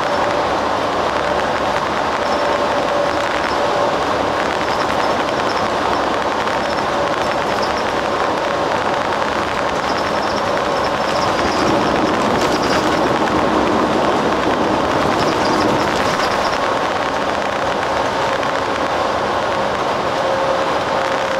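Airport limousine coach bus running at a steady pace, heard inside the cabin: a constant drone of engine and tyre noise with no break in level.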